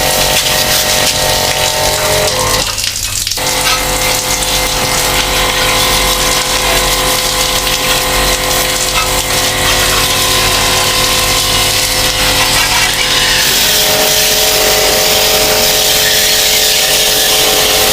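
Pressure washer spraying water onto an air conditioner's outdoor unit: a steady hiss of the water jet over the hum of the washer's motor and pump. The motor hum drops out briefly about three seconds in.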